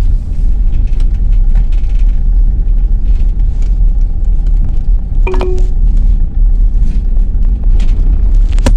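Car driving, heard from inside the cabin: a steady low rumble of engine and road noise. A short sharp sound with a brief tone comes about five seconds in, and a sharp knock near the end.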